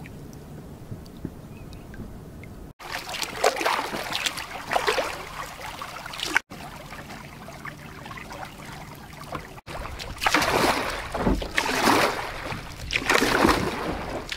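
Kayak paddle strokes in the water: the blades dip and splash roughly once a second, with water trickling off them. The strokes come in two stretches, louder in the second half, broken by quieter gliding and abrupt cuts.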